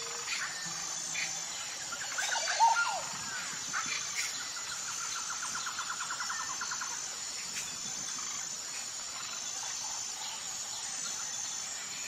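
Outdoor nature ambience: a steady, high insect drone with evenly repeating chirps, and birds calling over it. A burst of short calls comes about two seconds in, and a rapid trill of even notes follows from about five to seven seconds.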